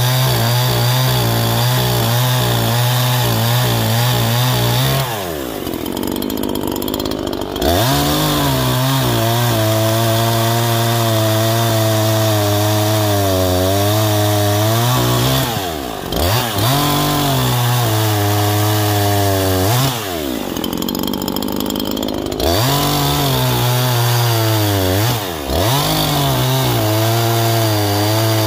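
Neo-Tec NH843 two-stroke chainsaw cutting through logs at full throttle. It twice drops to idle between cuts, about five and twenty seconds in, then revs back up, with brief throttle dips near the middle and near the end.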